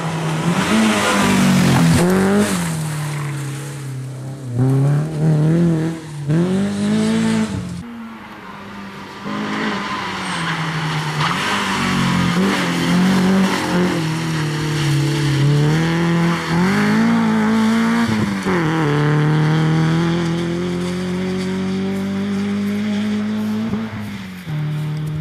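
Renault Clio Sport 2.0 rally car's four-cylinder engine revving hard, its pitch climbing and dropping repeatedly through gear changes and lifts for corners, then a long steady climb in one gear near the end. Over the first few seconds there is a hiss of tyres on the loose surface.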